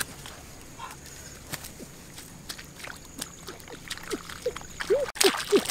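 Water sloshing and splashing: scattered light clicks and plinks at first, then a quickening run of drip-like plops and small splashes near the end.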